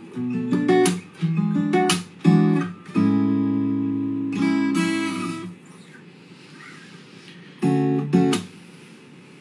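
Acoustic guitar strummed in chords for the first few seconds. About three seconds in, a chord is left ringing for two seconds or so, then comes a short pause, and near the end two more quick strums.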